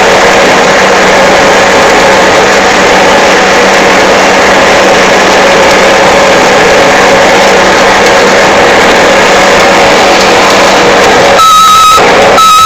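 Excavator's diesel engine running loud and steady, close to the microphone. Near the end two short, high electronic beeps sound over it.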